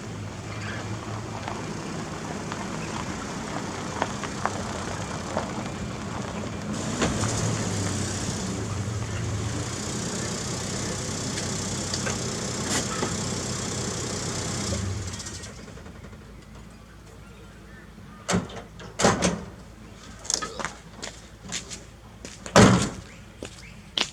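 Toyota Hilux's 4Y four-cylinder petrol engine running as the truck is driven, getting louder about a third of the way in, then dying away just past halfway as the engine is shut off. Several sharp knocks and clunks follow near the end, the loudest a single heavy thud.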